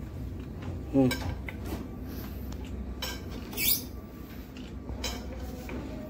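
Metal clinks and scrapes from a hand cable-lug crimping tool being worked with a steel pipe slid over its handle for leverage. There is a short squeak about a second in and a higher scraping squeal a little past the middle.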